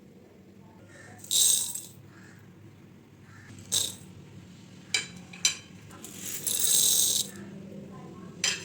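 Kitchenware being handled: several separate clinks and short rattles, the longest lasting about a second, around six seconds in.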